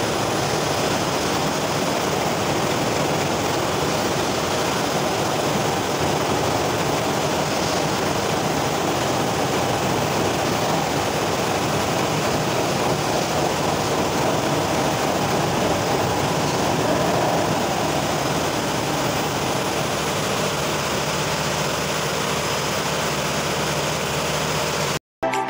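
Weichai marine diesel main engine being stopped with the stop button, its speed falling from about 400 rpm toward a standstill. The engine-room noise stays steady and loud throughout.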